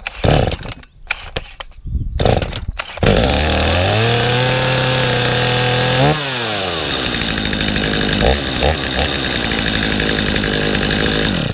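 Stihl MS 250C two-stroke chainsaw being pull-started, with a couple of short rasps of the starter cord before it catches about three seconds in. It picks up to a high fast idle and holds there. About halfway through, the engine speed slides down to a lower steady idle.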